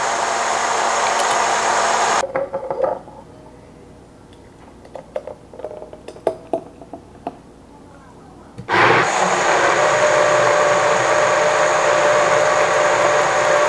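Portable rechargeable personal blender running steadily with a fixed whine, blending a fruit smoothie with strawberries, bananas and ice. It stops about two seconds in. Light clicks and clinks follow as the smoothie is poured into a glass jar, and the motor starts again abruptly about nine seconds in.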